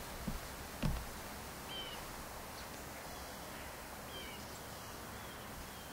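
Quiet outdoor background with a steady low hiss and faint short bird chirps every second or so, after two soft thumps in the first second.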